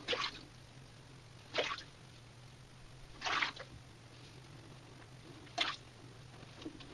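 Razor strokes on oiled stubble: faint short scraping sounds, one about every one and a half to two seconds.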